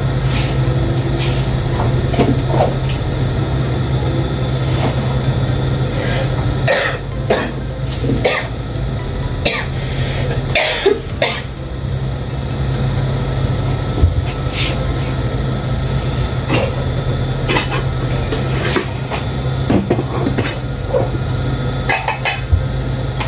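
A person coughing several times in short bursts over a steady low hum.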